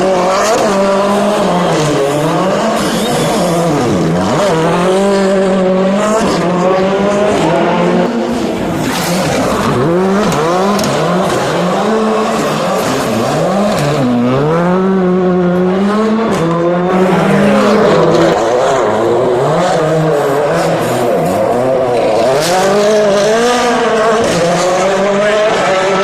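Rally car engine revving hard, its pitch climbing and dropping again and again as it accelerates and slows through the street-stage corners.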